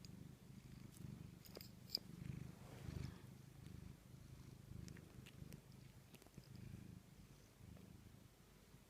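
Domestic cat purring softly in a steady, pulsing rumble, with a few light clicks about two seconds in.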